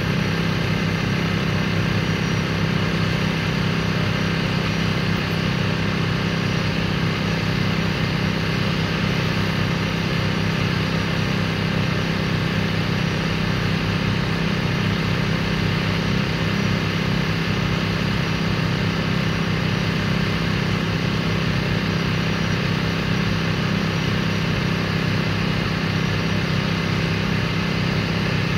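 An engine running steadily at constant speed: an even, low drone that does not change in pitch.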